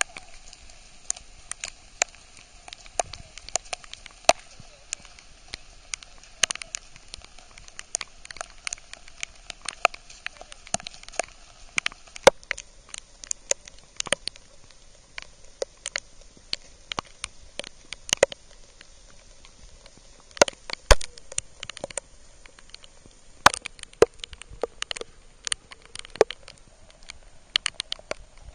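Raindrops pattering on something close to the microphone: irregular sharp ticks, several a second, over a faint steady hiss of rain.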